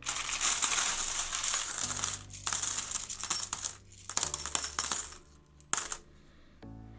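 Handful of loose metal coins being stirred and sifted in a tub, jingling and clattering in four runs, the longest about two seconds.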